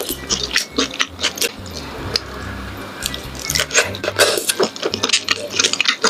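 Close-miked wet chewing and squishing of chewy beef large intestines, with irregular mouth smacks and clicks, over soft background music.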